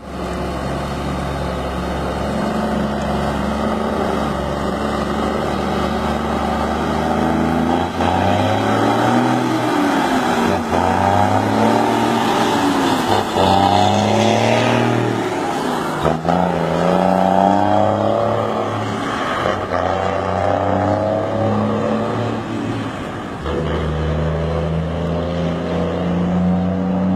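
Mercedes-Benz 1620 truck's six-cylinder diesel engine, loud, idling steadily, then revved up and down several times from about eight seconds in before dropping back to a steady idle near the end.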